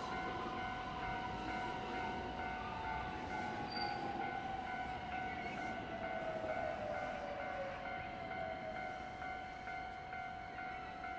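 Japanese level-crossing bell ringing in a steady rapid beat, about two strikes a second, as a train runs past the crossing. A long whine falls slowly in pitch over the first several seconds.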